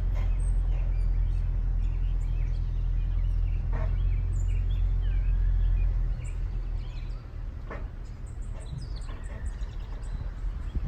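Low steady rumble of a running pickup truck, which eases off about six seconds in, with birds chirping and two short knocks, about four and eight seconds in.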